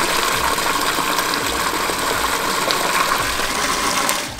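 A 12-volt bilge pump running and pushing water out of its hose into a cooler livewell: a steady rush of splashing water.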